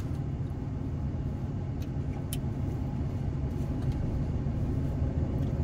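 Steady low mechanical hum, like an idling engine, with two faint short clicks about two seconds in.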